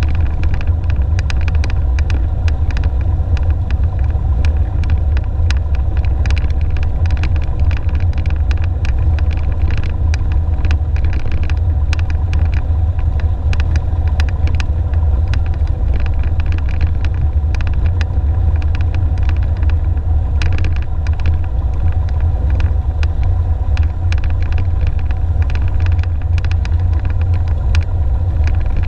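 Piper Warrior's four-cylinder Lycoming engine and propeller running steadily at low power while the plane taxis, heard inside the cockpit as a deep, even drone. Irregular crackling clicks run over it.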